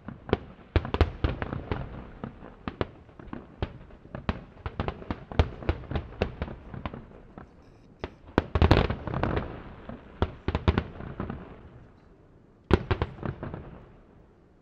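Aerial firework shells bursting in rapid, irregular bangs. A dense, loud run of bursts comes about two-thirds of the way through, and a last couple of bangs come near the end before the sound dies away.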